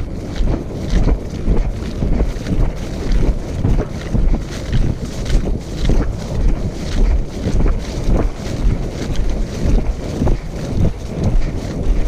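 Heavy wind noise on the microphone of a camera carried on a running horse, with a beat about twice a second from the horse's strides and hoofbeats.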